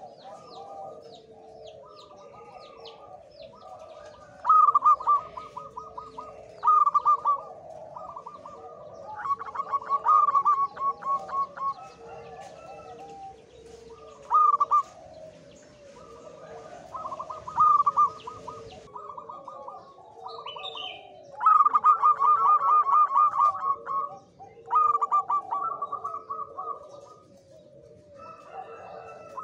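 Male zebra dove (perkutut) cooing: loud phrases of rapid staccato notes, repeated every few seconds, the song of a male in high breeding drive. Softer chatter and chirps of other birds run underneath.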